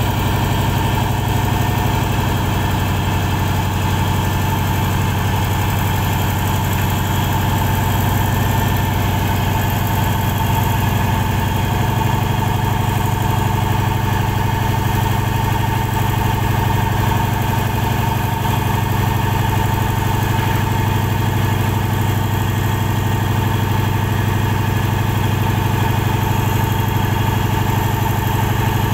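Engine of a sand-dredging pontoon running at a steady, unchanging speed, a deep continuous hum with no revving.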